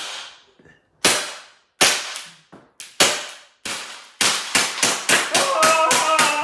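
BB gun firing: a few single shots about a second apart, then a rapid string of shots, about three a second, from about four seconds in.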